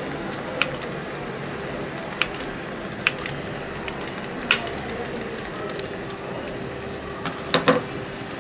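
Kitchen scissors snipping fresh coriander leaves over a kadai: a handful of short, sharp snips spread out, two close together near the end. Under them runs a steady hiss with a faint hum.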